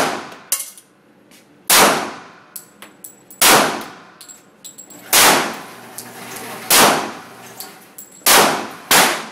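Smith & Wesson .45 pistol firing seven single shots, spaced about a second and a half to two seconds apart, the last two closer together. Each sharp shot has a ringing echo that dies away.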